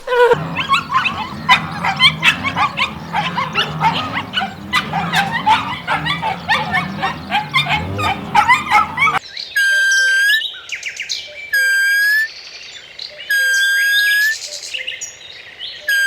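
A dense chorus of birds chirping, many short overlapping notes over a low hum. About nine seconds in it switches abruptly to a long, even, high call repeated about every two seconds, with short chirps between the calls.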